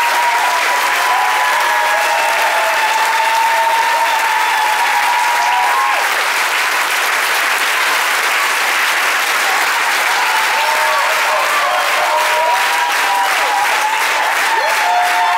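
A theatre audience applauding loudly and steadily, with voices cheering over the clapping. In the second half the clapping grows more even and rhythmic.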